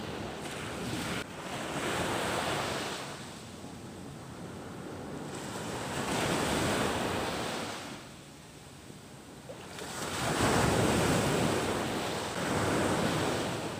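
Ocean surf breaking and washing up the beach: several waves, each a swell of rushing noise that rises and fades, a few seconds apart.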